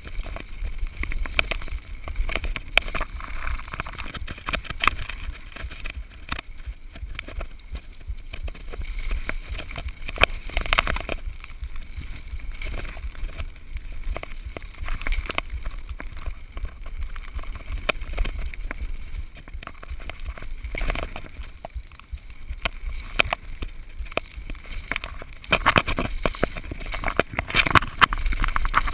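Mountain bike ridden fast down a rough dirt singletrack: tyres rolling over dirt and stones, the bike rattling and knocking over bumps, and a steady low wind rumble on the camera microphone. The knocks come thick throughout and are loudest and densest near the end.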